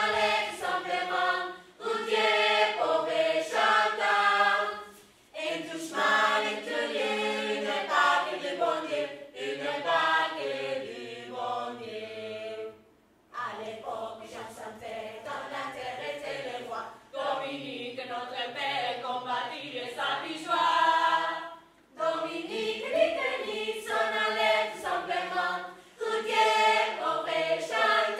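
A group of voices singing together without accompaniment, choir-like, in long phrases with brief pauses between them.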